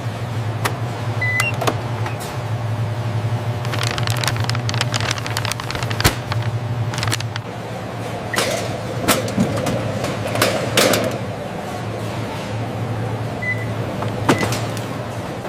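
Factory machinery running with a steady low hum, overlaid by irregular clicks and clanks and a few short high beeps, with a busier stretch of clatter in the middle.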